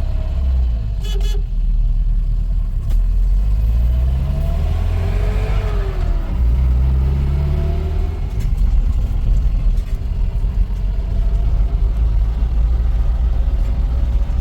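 A motor vehicle's engine running under a steady low rumble, rising in pitch twice as it accelerates.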